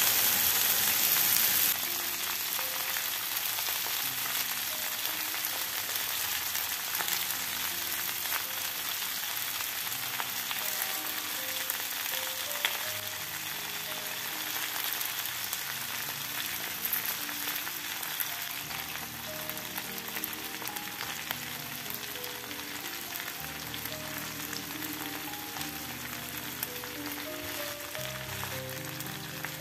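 Kutum fish and parsley sizzling in oil in a frying pan, a steady crackle with fine pops throughout, louder for the first couple of seconds and then quieter.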